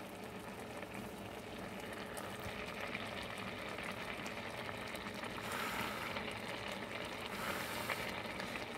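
A pot of bulgur wheat rice and peas with kidney beans bubbling at a rolling boil: a steady wash of bubbling that swells a little about five and a half and seven and a half seconds in.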